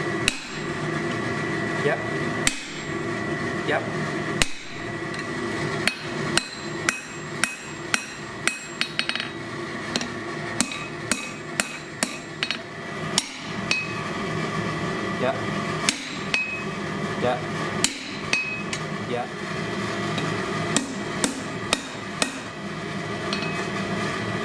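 Hand hammer striking red-hot steel on an anvil while setting the nibs of wolf jaw tongs: runs of sharp blows, up to about two a second, with short pauses between them. A steady hum runs underneath.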